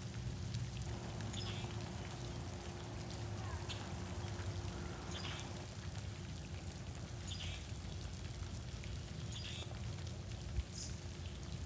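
Light freezing drizzle pattering and dripping outdoors, with scattered faint high ticks over a steady low hum.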